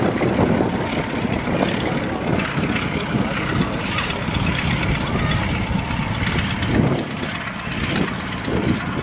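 Bücker 133 Jungmeister biplane's engine running as it taxis on the grass, with wind noise on the microphone.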